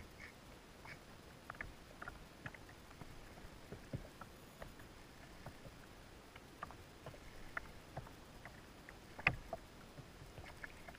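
Water lapping and slapping against a small boat's hull: faint, irregular small knocks and clicks over a low steady background, with one louder knock about nine seconds in.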